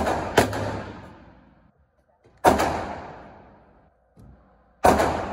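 Four gunshots at an indoor range, two in quick succession at the start, another about two seconds later and one more near the end. Each report is sharp and rings on with a long echo off the range's hard walls.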